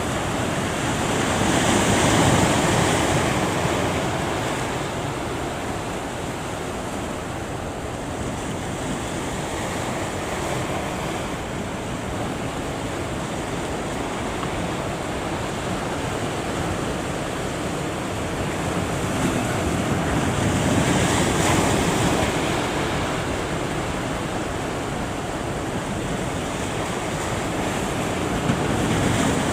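Heavy surf breaking at a river-mouth bar, with wind on the microphone. Two larger waves surge up, about two seconds in and again about twenty seconds in.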